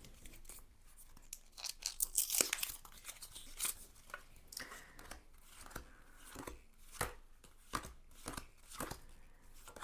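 Tarot cards being flipped through one at a time: irregular light flicks and slaps of card stock, with a quick cluster about two seconds in.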